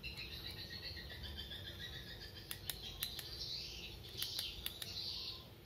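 Insects and birds chirping steadily in the background, with a few short sharp clicks in two small clusters around the middle and the latter half.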